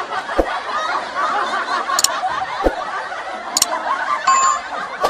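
Laughter from many overlapping voices, like an added laugh track, with sharp clicks about two and three and a half seconds in.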